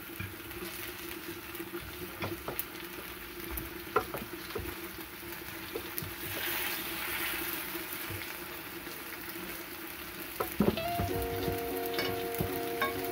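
Quince wedges sizzling in honey in a nonstick frying pan, with scattered clicks of a fork against the pan as the pieces are turned. Background music comes in near the end.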